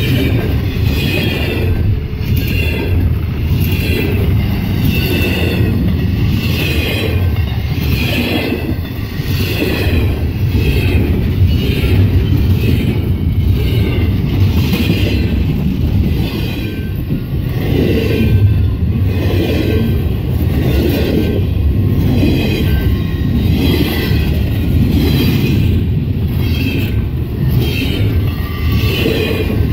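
Double-stack container freight train rolling past: a loud, steady rumble of the cars on the rails, with high wavering tones coming and going above it.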